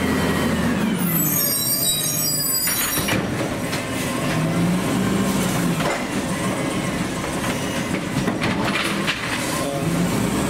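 Automated side-loader garbage truck's AutoReach arm grabbing, lifting and dumping a trash cart and setting it back down, with the diesel engine revving to drive the hydraulics and a hydraulic whine rising and falling. A high metallic squeal comes about a second in, and there are sharp knocks as the cart is shaken out and lowered.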